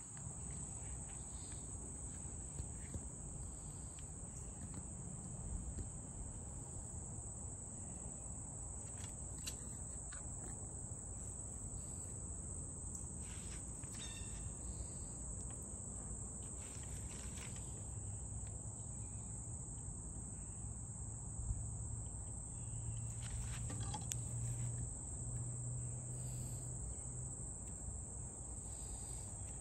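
Insects calling in a continuous, steady high-pitched trill, with a few faint knocks now and then.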